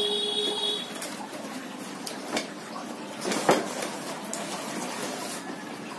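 Cardboard box being handled and rustled, with a few knocks, the loudest about three and a half seconds in.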